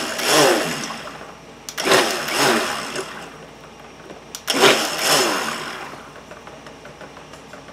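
A large stick blender (immersion blender) on low, blending lye solution into soap oils in a plastic tub: it is run in three short pulses, each starting sharply and dying away over a second or two.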